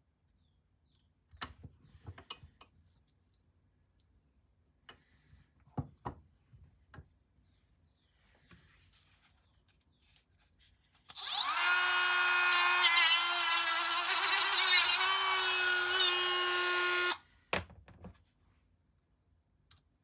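Milwaukee rotary tool with a cut-off disc whining at high speed for about six seconds, cutting the end off a small plastic car air-quality sensor held in a vice, its pitch wavering as it bites. Before it, a few light clicks and knocks as the sensor is handled in the vice jaws.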